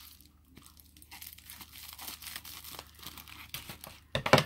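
Packaging rustling and crinkling in the hands as a mail-order package is opened and its contents handled, with a louder burst of rustling just before the end.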